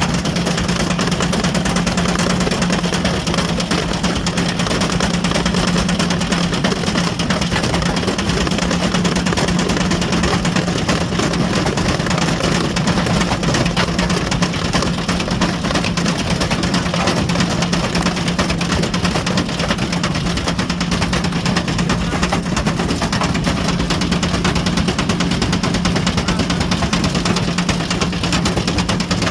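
Ariston Margherita washing machine running with a brick in the drum: a steady motor hum under dense, continuous clattering and rattling.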